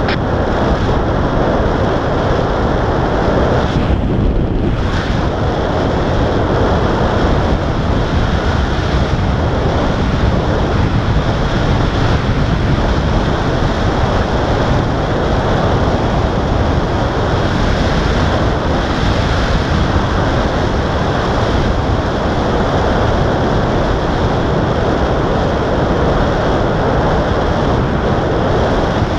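Steady rush of airflow buffeting the microphone of a paraglider in flight under tow.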